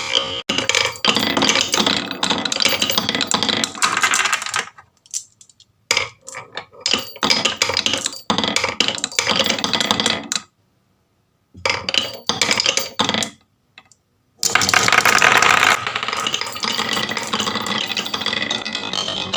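Many marbles rolling and clattering down a marble run, a continuous rattle of hard clicks. It cuts off abruptly to silence a few times and starts again.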